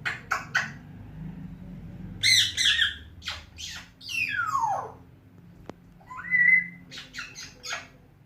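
African grey parrot calling: a few sharp clicks, then a harsh squawk. Next comes a long whistle sliding down in pitch, then a short level whistle, and more clicks near the end.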